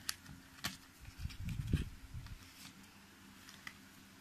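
Small metal hand tools handled in a zippered soft tool case: a few light clicks and taps, with a stretch of rubbing and rustling about a second and a half in, then scattered soft ticks.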